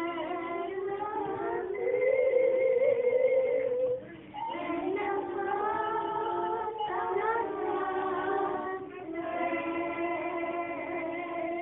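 Slow song with singing in long held notes, each held for a couple of seconds, with short breaks about four and nine seconds in.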